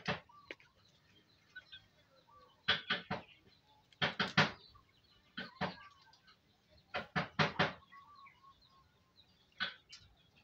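Caged hill myna: short, sharp clicks and knocks in quick clusters of two to four, repeating every second or two.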